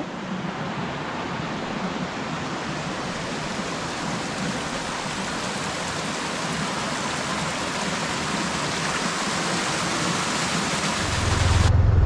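Waterfall running at low flow: a steady rushing hiss of falling and splashing water. About eleven seconds in it cuts abruptly to a louder low, steady hum.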